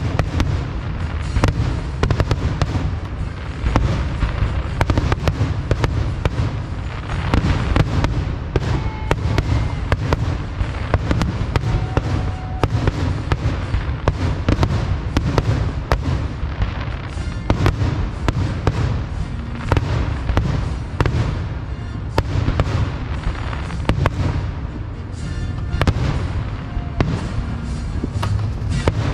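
Aerial fireworks display going off in a dense, continuous barrage: many booms and crackling bursts overlapping, with no pause between them.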